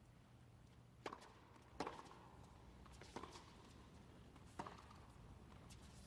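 Tennis ball struck by rackets during a point: four sharp pops spread over about four seconds, the second the loudest, against a hushed indoor crowd.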